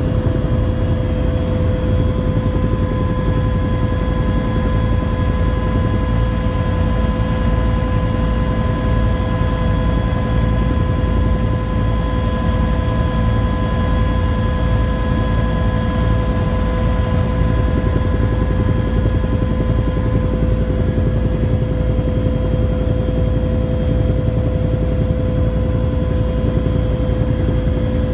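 UH-1 helicopter heard from inside the cabin in flight: a steady low rotor and engine rumble with a steady high whine over it.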